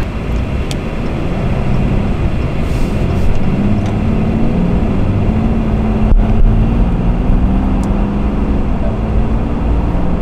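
Heard from inside the cab of a Ram 3500 pickup on the move: steady road noise with the low hum of its 6.7-litre Cummins turbo-diesel, the engine note rising a little about four seconds in.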